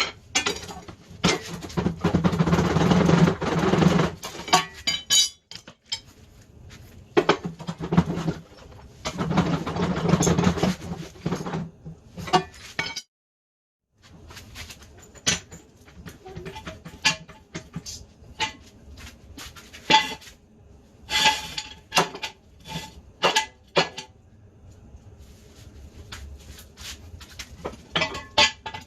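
Metal tools and parts clinking and clattering, with a few longer rasping noisy stretches in the first half; the sound cuts out briefly about halfway through.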